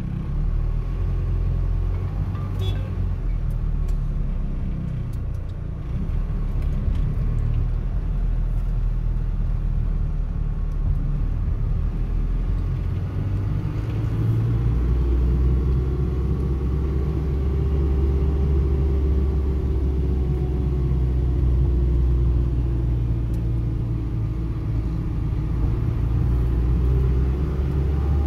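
Low, steady engine and road rumble of a car driven slowly, heard from inside the cabin. It grows louder about halfway in, with a faint engine note that rises gently and then eases off.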